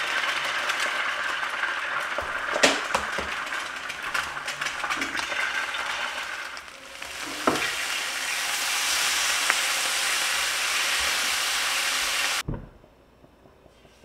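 Eggs sizzling in hot oil in a stainless steel frying pan, with a couple of light knocks. About seven seconds in, bacon strips sizzle more loudly in the pan. Near the end the sizzle cuts off abruptly to a faint background.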